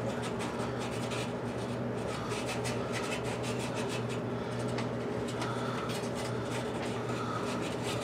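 220-grit sandpaper rubbing quickly back and forth on the copper rod of a gas water heater's flame sensor, a steady run of scratchy strokes. The sensor is being sanded clean because the heater keeps shutting off, and a dirty sensor is the suspected cause.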